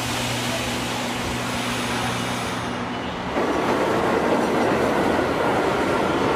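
A low steady hum, then about three seconds in a train starts rumbling past, louder and rougher, with a faint high squeal from the wheels.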